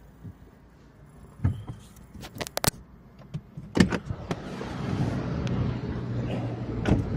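Clicks and knocks inside a just-parked car, the sharpest about four seconds in. A steady rush of outside noise with a low hum then sets in and runs on.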